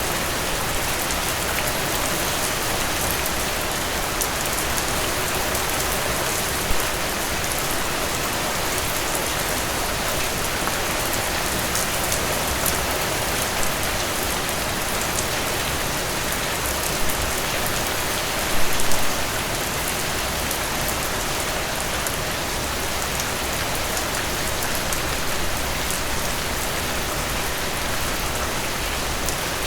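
Steady rain falling, an even hiss with many fine drop ticks, and a few louder single hits, the loudest as a brief cluster just past the middle.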